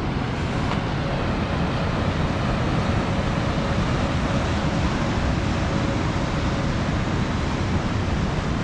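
Nevada Fall's rushing water, a steady, unbroken roar of a large waterfall.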